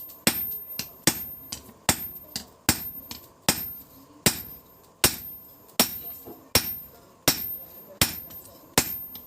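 Steady hammer blows on steel while a billhook machete blade is forged, about one strike every 0.8 s, each with a short metallic ring.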